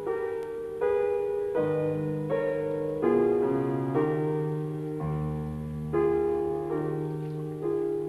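Slow piano music: notes or chords struck about once every three-quarters of a second, each fading before the next. A deeper bass note joins about five seconds in.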